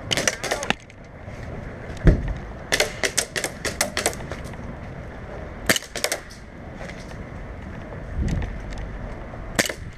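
Airsoft guns firing in quick volleys of sharp cracks: a rapid string at the start, a longer string a few seconds in, a short one around the middle and a single shot near the end. A dull thump about two seconds in.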